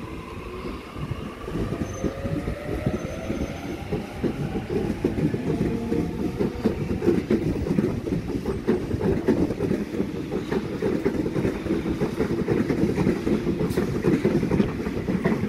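Sydney Trains double-deck electric train pulling away from the platform. Its traction motors whine, rising in pitch over the first few seconds, then the wheels clatter and rumble steadily louder as the cars pass close by. The sound cuts off suddenly at the end.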